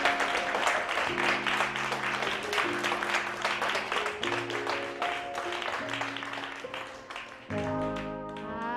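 Theatre audience applauding over background music. The applause dies away near the end, leaving sustained musical notes.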